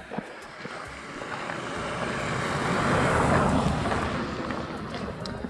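A vehicle driving past, its noise swelling to a peak about three seconds in and then fading.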